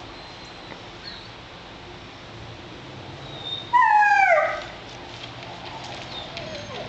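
A Labrador retriever puppy gives one loud whine about halfway through, just under a second long and falling in pitch, and a fainter one near the end.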